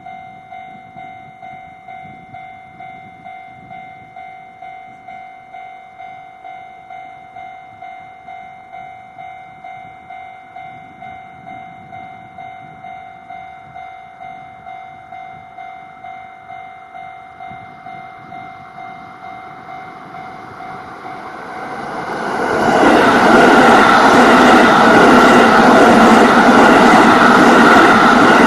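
Japanese level-crossing warning bell ringing in a steady run of strokes, about two a second. About 22 seconds in, an EF210 electric locomotive and its train of rail-carrying flatcars arrive and pass loudly, swamping the bell.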